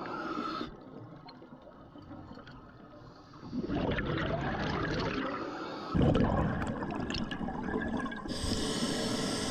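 Water noise picked up by an underwater camera, rushing and gurgling around the housing. It grows louder about three and a half seconds in and surges again about six seconds in.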